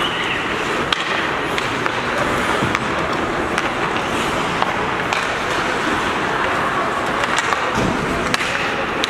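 Ice hockey play: skates scraping and carving on the ice with a steady hiss, broken by frequent sharp clacks of sticks and puck.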